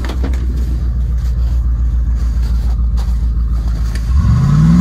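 Old Ford pickup's engine idling with an even low lope, then revving up sharply about four seconds in as the driver goes for a burnout.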